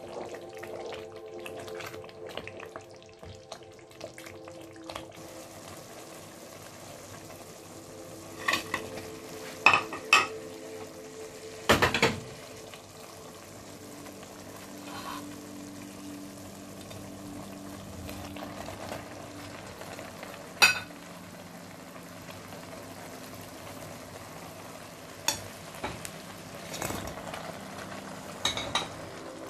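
Food sizzling as it fries in hot sunflower oil in a cooking pot, stirred with a utensil that knocks sharply against the pot several times.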